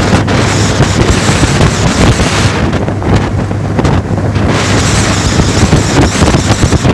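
Outboard motor, 25 hp, running steadily as a jon boat cruises under way, a constant low hum under wind rushing over the microphone; the wind hiss eases for a couple of seconds in the middle.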